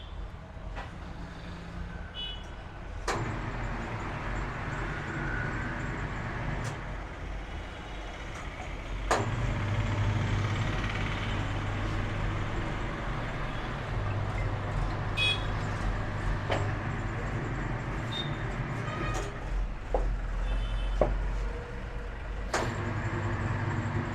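Electric motor of a tyre-changer machine running in several spells, switched on and off with sharp clicks, as a tyre is fitted onto a scooter wheel rim.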